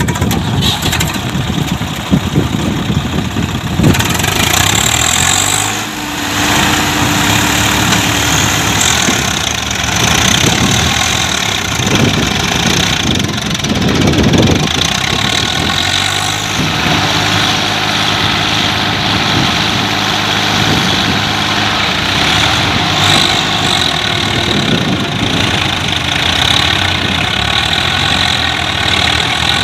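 Diesel tractor engines running hard under load, the Swaraj 744 FE's three-cylinder diesel straining to tow a second tractor whose rotavator is bogged in soft mud. The engine note shifts a few times.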